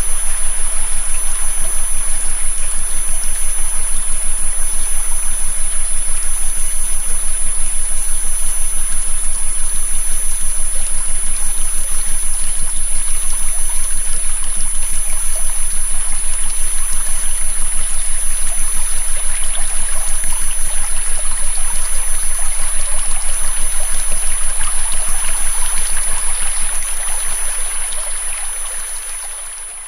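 Flowing river water with steady, high-pitched electronic tones and a low hum laid over it. It all fades out over the last few seconds.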